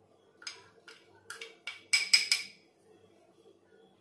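A spoon tapping and scraping against a small glass bowl to knock powder out: about seven quick, ringing clinks in the first half, the loudest around the middle, then they stop.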